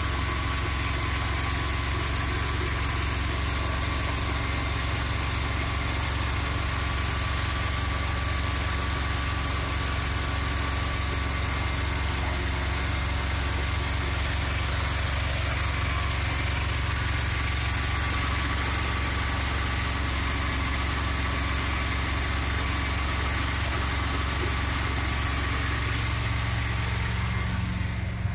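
1969 Dodge A100 van's 318 V8 idling steadily while it warms up after a cold start, heard inside the cab with the engine cover off.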